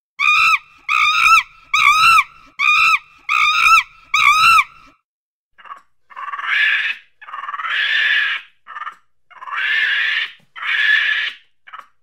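Gibbon calls: six short arched hoots in quick succession, then four longer, hoarser wails that rise in pitch.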